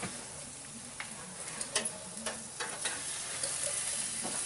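Food sizzling on an open gas grill, a steady frying hiss, with a few short clicks and scrapes of a utensil on the grate.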